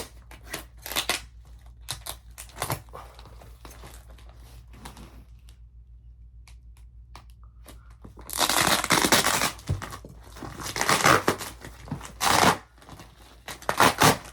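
A parcel's packaging being cut and torn open: small scattered scrapes and rustles at first, then loud tearing and crinkling in several bursts from about eight seconds in.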